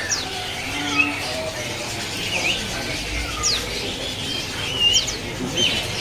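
Several caged songbirds chirping and whistling at once: short, sharply falling whistles and dipping notes overlapping one another.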